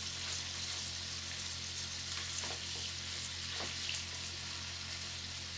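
Scampi sizzling in hot oil in a frying pan, a steady hiss, with a couple of short knocks of a utensil in the pan about two and a half and three and a half seconds in.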